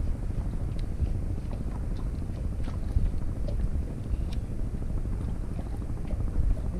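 Steady low rumble of wind buffeting the microphone over open water, with faint scattered ticks from a spinning reel being cranked as a light jig is worked.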